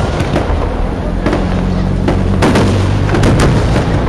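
Aerial firework shells bursting in a display: a string of sharp bangs, roughly one or two a second, over a continuous low rumble.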